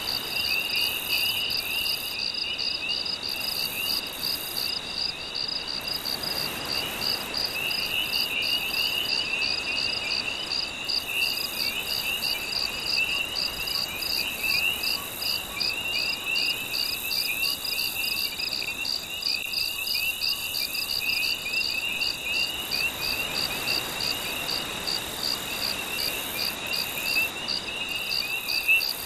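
A night chorus of crickets and other insects chirping: a steady pulsed chirp about three times a second, with a second, lower, rapid trill. Underneath is a faint, even wash.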